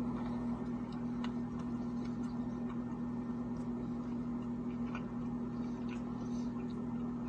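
A steady low hum, with a few faint scattered clicks over it.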